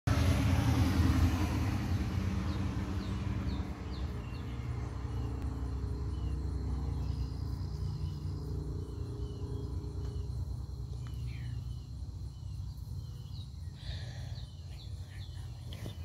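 Outdoor background: a steady low rumble, loudest in the first few seconds, with short high chirps from small birds scattered through it, more of them near the end.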